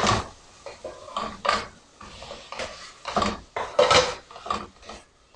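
Wooden spatula scraping and knocking against a metal pot while tuna and mushrooms are stirred, in irregular strokes with a few louder knocks.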